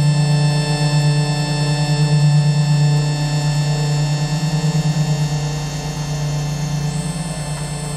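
Experimental ambient drone music: a loud, steady low hum with a fast wobble, a softer tone above it pulsing about twice a second, and many sustained high tones held throughout.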